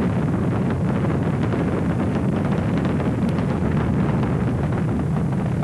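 Space Shuttle liftoff: the solid rocket boosters and main engines running at full thrust, a loud, steady rumble with crackling.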